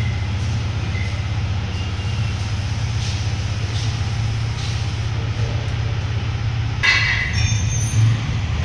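An engine idling steadily, with a short, sharp high-pitched noise about seven seconds in.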